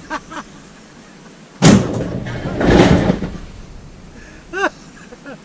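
A metal box set down with a loud bang about one and a half seconds in, then a scraping shuffle and a few short squeaks.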